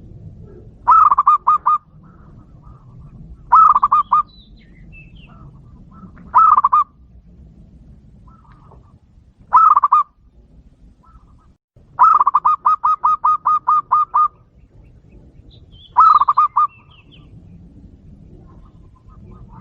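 Zebra dove (perkutut) cooing: six phrases spaced a few seconds apart, each an opening coo followed by a quick run of short staccato notes. The run about midway is the longest, about a dozen notes.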